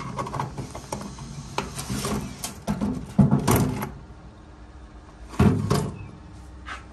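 Small plastic boxes of steel mould pins being handled and set down on a table, the steel parts rattling inside: a run of clattering knocks, then a louder single knock about five and a half seconds in.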